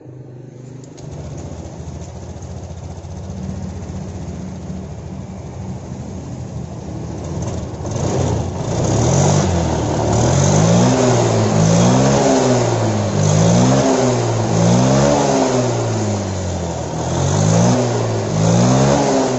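Honda Genio scooter's 110 cc single-cylinder engine and CVT running, steady at first, then revved up and down about once a second from around 8 seconds in. The CVT runs smoothly with no knocking or jingling, after the drive belt's uneven running and a loose ring in the clutch were put right.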